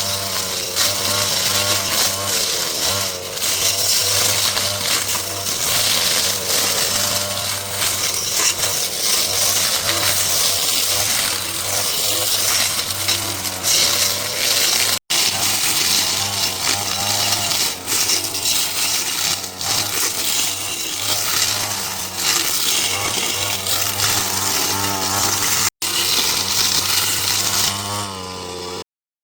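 A small engine-driven power tool of the kind used for cutting through overgrowth running continuously, its pitch wavering up and down. The sound drops out briefly twice and cuts off abruptly near the end.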